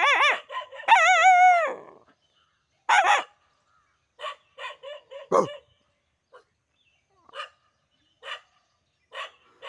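A man imitating a dog's howl, two loud wavering calls close by, followed by a dog barking back, a louder bark about three seconds in and then a string of short, fainter barks.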